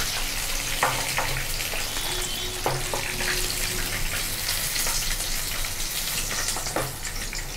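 Batter-coated chicken wings deep-frying in hot oil in a wok: a steady sizzle and crackle. A few brief knocks of a wooden spatula against the pan come through it as fried pieces are lifted out.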